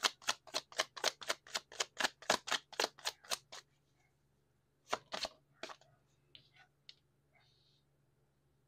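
Tarot cards being shuffled by hand: a quick, even run of card slaps, about five a second, stopping about three and a half seconds in. A few separate clicks and taps of card handling follow.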